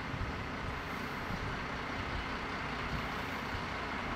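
A large vehicle's engine running steadily, a low rumble with no change in pitch.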